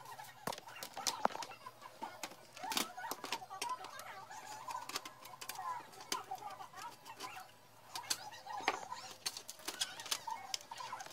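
Scattered sharp clicks and light clatter of a screwdriver, screws and thin sheet-metal housing as a small blower cooling fan is unscrewed and lifted out, over a continuous wavering background sound.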